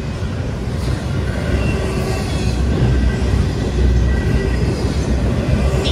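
Norfolk Southern double-stack intermodal train's well cars rolling past close by: a steady, dense rumble of steel wheels on the rails.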